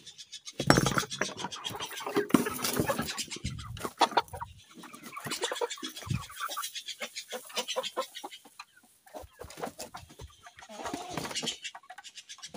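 Chickens clucking and squawking as they pour out of their coop, with loud wooden knocks and rattling from the coop's wooden door being opened, about a second in.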